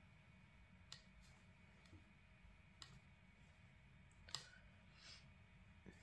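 Near silence: room tone with several faint, sharp clicks and taps scattered through it, the loudest about four and a half seconds in.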